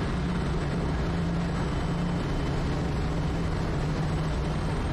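Quest Kodiak's single turboprop engine and propeller running at a steady drone, heard in the cockpit on final approach.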